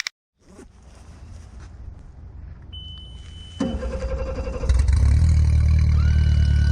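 Jet-drive boat motor running and being throttled up, getting louder in two steps, a little over three and a half seconds in and again about a second later.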